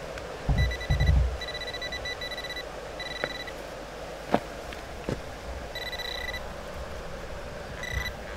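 Electronic beeping from a metal detecting pinpointer, a steady high tone in short repeated pulses and longer held beeps, signalling a small buried iron target that turns out to be a tiny nail or piece of wire. A couple of dull thumps about a second in and a few sharp clicks of the digging tool striking stones.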